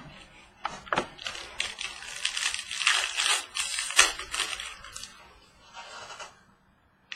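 Trading cards being handled: crisp sliding, flicking and crinkling of cards and packaging, with many small clicks. It runs for about five seconds and fades out near the end.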